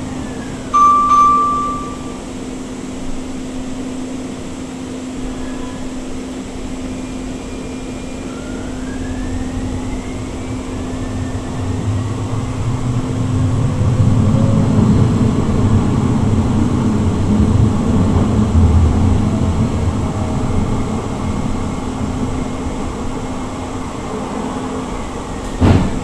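Siemens S200 light rail vehicle heard from inside while running on street track: a steady hum from its IGBT-VVVF traction equipment, with a thin rising inverter whine as it picks up speed. The low wheel-on-rail rumble grows louder through the middle and then eases. A short tone sounds about a second in.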